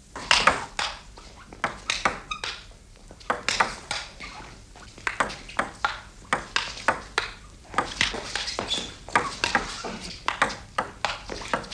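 Table tennis rally: the ball clicking back and forth off bats and table, about two or three sharp hits a second.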